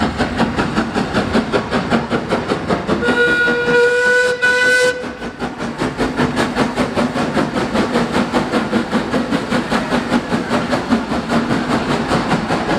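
Metropolitan Railway E class 0-4-4 tank locomotive No. 1 passing close under steam with a quick, steady beat. It sounds one long steam whistle of about two seconds, starting some three seconds in.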